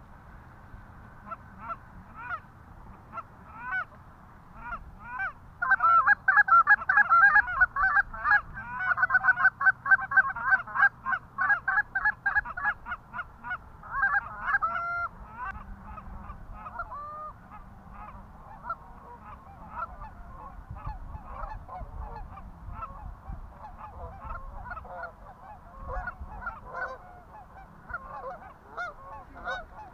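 Canada goose honks in quick succession, many overlapping. They are densest and loudest from about six to fifteen seconds in, then thin out into scattered, quieter honks.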